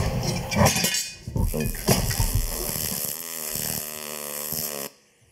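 Metal clanking as sheet steel is cut on a hand-lever bench shear, then a MIG welder's arc crackling and hissing steadily from about two seconds in, stopping abruptly near the end.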